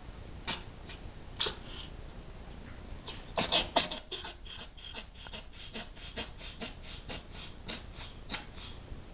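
Cat reverse sneezing: short, sharp, noisy inward breaths through the nose. A few come singly at first, then a loud cluster, then a fast even run of about four a second.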